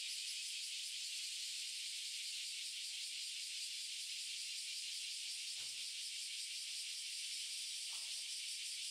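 Steady high-pitched hiss with nothing beneath it, and a faint soft knock about five and a half seconds in.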